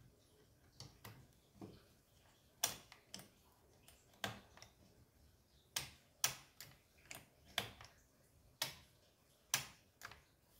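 Faint, irregular sharp clicks and light taps of small plastic and metal parts being fitted at a chainsaw's carburetor and choke linkage, about a dozen spread unevenly.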